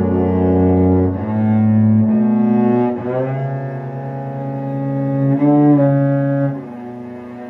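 Cello bowing long, sustained notes in a slow melody, sliding in pitch between a few of them; it grows softer near the end.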